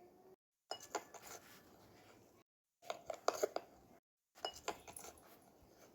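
Faint clicking and light clattering in three short clusters, each under a second long, separated by moments of dead silence.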